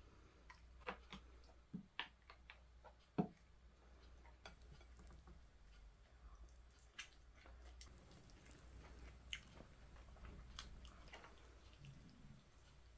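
Quiet tableware sounds of a meal: a wooden spoon scooping and tapping against a ceramic noodle bowl and a small pot, and noodles being stirred and lifted in cold soybean-noodle soup. There are scattered small clicks, with a sharper knock about three seconds in.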